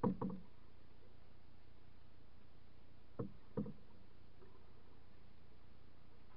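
Wooden canoe paddle working a stroke: short, dull knocks of the paddle against the canoe, a small cluster at the start and a pair about three seconds in, over a steady low hiss.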